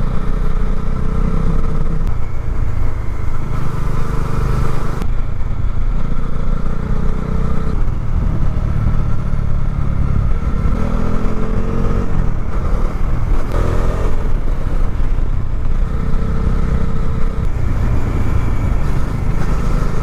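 Bajaj Dominar 400 motorcycle's single-cylinder engine running under way. The engine note climbs a few times in the middle as the bike accelerates.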